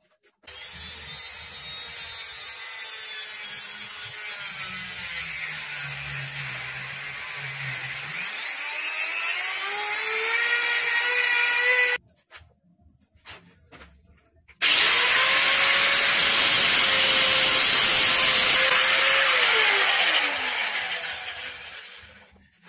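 An electric drill spins a circular saw's armature while its commutator is sanded: a steady motor whine that rises in pitch and then cuts off suddenly. After a few faint knocks, a power tool runs again, louder, and winds down with a falling pitch near the end.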